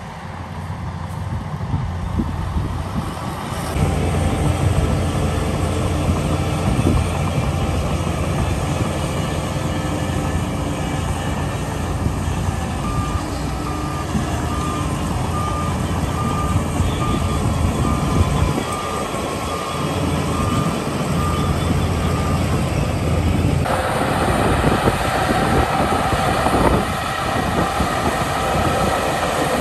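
Heavy dump truck's diesel engine running as it backs up, with a reversing beeper sounding about once a second for several seconds midway. Near the end the sound changes abruptly to a Shantui bulldozer's diesel engine working as it pushes soil.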